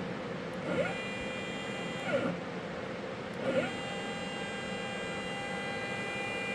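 Axis drive motor of a Birmingham 1236 CNC lathe jogging a slide along its leadscrew: a whine that rises in pitch as it starts, runs steadily for about a second, falls away as it stops, then starts again a little past the middle and runs on steadily. The feed speeds are not yet tuned.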